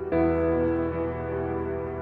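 Background music: slow ambient piano or keyboard chords, a new chord struck just after the start and held.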